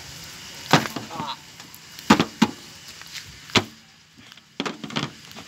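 Metal steamer-pot lid being set on and settled onto the steamer, giving several sharp separate knocks and clanks, the loudest about two seconds in.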